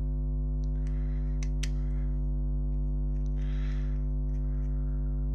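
Steady electrical mains hum, a low buzz with many overtones. Over it come a few sharp small clicks about a second in and a short rustle past the middle as a GoPro camera is handled and fitted into a plastic dual mount.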